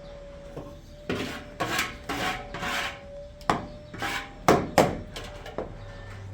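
Rough scraping or rubbing strokes in an irregular series, with three sharp knocks about midway, over a faint steady hum.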